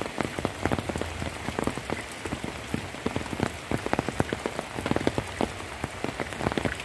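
Heavy rain falling: a steady hiss with many sharp, irregular drop strikes close by.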